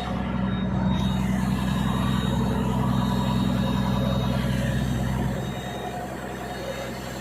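Fishing launch's engine running steadily with a low hum; it drops a little in loudness about five seconds in.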